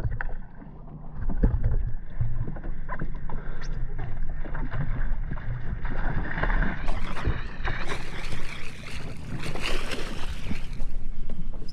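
Boat motor running steadily, with water and wind noise and a few knocks; a louder rushing hiss builds from about seven seconds in.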